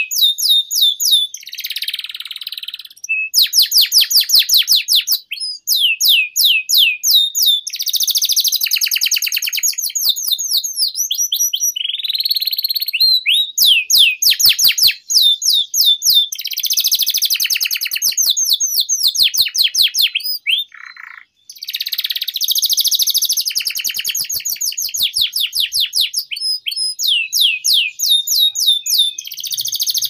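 Domestic canary singing a long unbroken song of fast rolling trills, interspersed with harsher buzzy notes, with a brief break about two-thirds of the way through.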